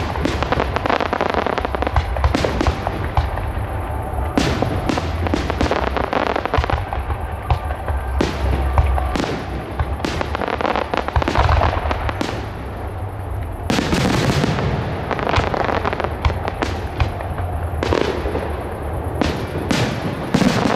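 Fireworks display: aerial shells and low comets bursting and crackling in quick, irregular succession, with a brief thinning just before a big burst of crackle about two-thirds of the way through.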